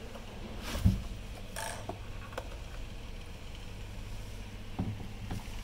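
Handling noise from a USB cable plug being fitted into the port of a plastic radio-control transmitter. There is a sharp knock about a second in, a short rustle, then a few lighter clicks and taps, over a steady low hum.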